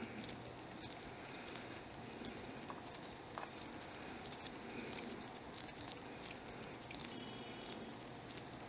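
Faint rubbing of fingers and palms on a ball of black polymer clay as it is squeezed and turned, with scattered small clicks.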